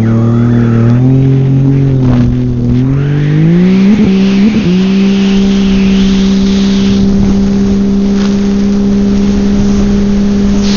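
Engine of the GPRXP "Red Devil" personal watercraft under way at speed. It climbs in steps through the first few seconds, wavers briefly as the craft crosses wake, then holds a steady high pitch over the hiss of spray and hull on the water.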